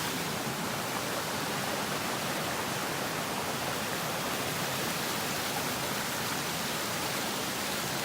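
Steady rushing of stream water.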